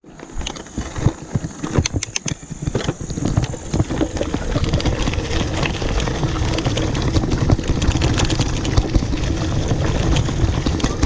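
Mountain bike riding on a dirt forest trail: rumbling tyre and rattle noise with many small clicks and knocks from the bike, building up over the first few seconds and then holding steady. Scattered sharp clicks and knocks stand out in the first three seconds.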